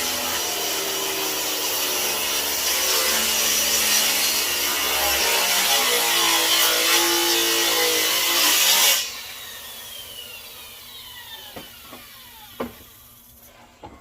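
Electric circular saw cutting through a wooden beam, its motor pitch wavering under load. About nine seconds in the cut ends and the blade whines down as it spins to a stop, followed by a few light knocks.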